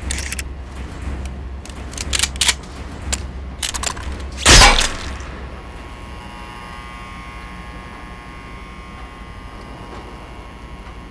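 A low rumble with several short, sharp noises, then one loud bang about four and a half seconds in. After it comes a quieter steady hum with a faint whine.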